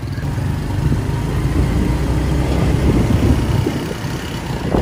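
Small motorcycles running at riding speed, heard from one of the moving bikes, with a steady low rumble.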